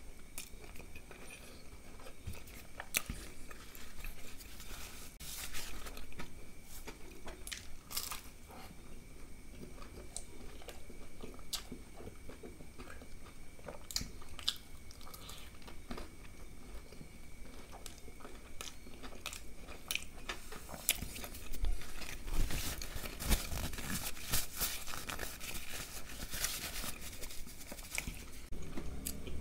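Close-up crunching and chewing of a crispy fried wrap shell: sharp crunches at each bite, then chewing. The crunches come thickest a little over two-thirds of the way through.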